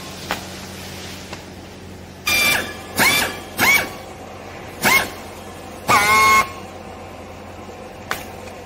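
Five short honks from a horn, each sliding up in pitch as it starts; the last is the longest. A steady low machine hum runs underneath.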